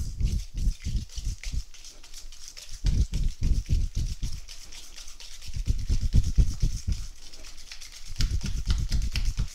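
A wire whisk beats thick drained yogurt and sugar by hand in a stainless steel bowl. Quick strokes, about five a second, knock and scrape against the metal bowl in four spells with short pauses between them.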